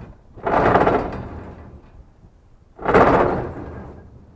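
A heavy piece of scrap scraping as it is slid or dragged, in two rough rushes about two and a half seconds apart, each fading over about a second.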